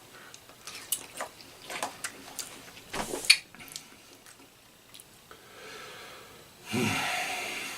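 Eating sounds: a run of small clicks and taps in the first half, then, near the end, a loud noisy rush of air through the mouth lasting about a second.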